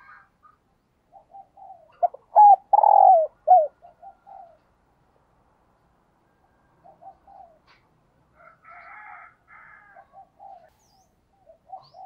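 Spotted dove cooing: a loud phrase of several short coo notes about two seconds in, then softer scattered coo notes through the rest.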